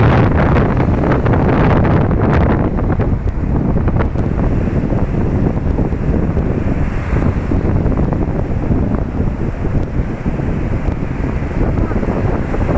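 Steady wind buffeting the microphone, with sea waves washing beneath it.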